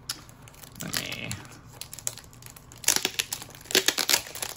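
Clear plastic packaging sleeve crinkling and crackling as it is peeled and pulled off a metal pen tin, in irregular bursts that are loudest about three and four seconds in.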